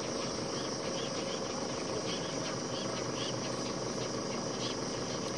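Outdoor background of insects chirping: faint short chirps repeating every fraction of a second over a steady hiss, with a faint steady hum underneath.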